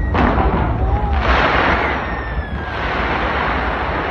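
Fireworks going off in rapid succession: continuous booming and crackling over a heavy low rumble. A denser spell of crackling comes about a second in.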